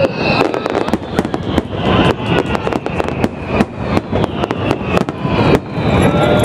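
Aerial fireworks display: a rapid, irregular run of bangs and crackles from many shells bursting close together.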